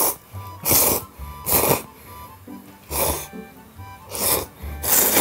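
A person slurping soba noodles from a bowl: about six short, loud slurps in a row, with light background music underneath.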